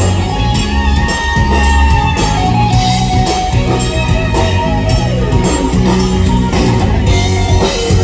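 Live country-rock band playing through the stage PA during a sound check, with a steady drum-kit beat under guitar.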